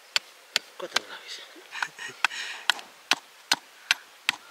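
Steady rhythmic chopping, a blade striking down onto a wooden block or board, about two and a half even strokes a second, some ten strokes in all.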